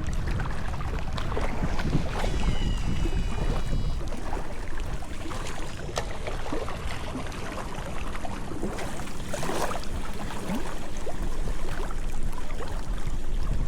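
Wind buffeting the microphone, a continuous uneven low rumble, with a brief high thin tone about two seconds in.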